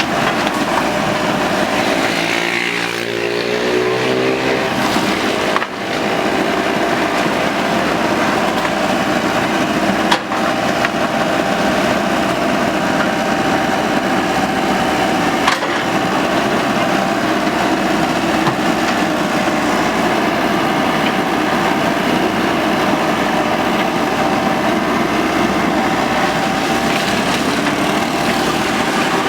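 Hydraulic excavator engine running steadily under work while it cuts bamboo, with sharp cracks of breaking bamboo about ten and fifteen seconds in.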